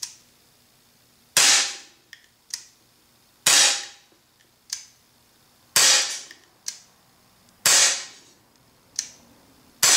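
Gamo PT-85 CO2 blowback pellet pistol firing five shots about two seconds apart, each a sharp crack with a short tail. A fainter click follows most of the shots.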